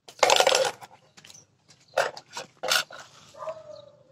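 A dog barking loudly a few times, with a drawn-out whine near the end.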